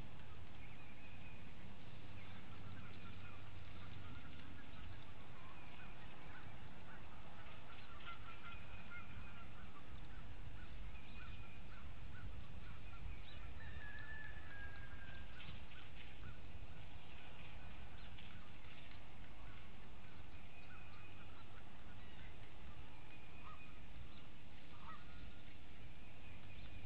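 Distant birds calling in short repeated notes over a steady low rumble.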